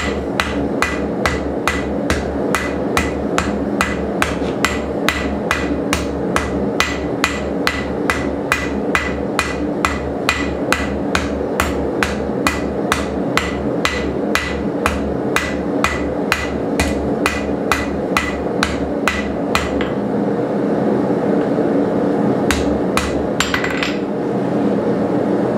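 Hand hammer striking a red-hot coil-spring steel bar on a steel anvil in a steady rhythm of about two and a half blows a second, drawing out and rounding the taper of a punch. The blows stop about 20 seconds in, then a few more come near the end, with a steady noise underneath throughout.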